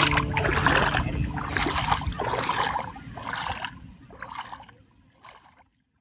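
Feet kicking and paddling in pool water: repeated sloshing splashes, about one or two a second, that fade out to silence near the end.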